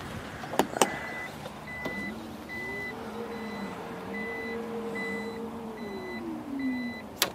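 Powered tailgate of a KGM Torres SUV closing. A warning beep sounds about twice a second while the tailgate's electric motor runs with a whine that rises, holds steady, then falls away. A sharp thump near the end is the tailgate shutting.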